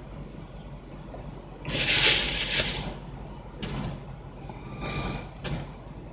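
A brief loud sliding noise about two seconds in, followed by a few softer knocks and rustles.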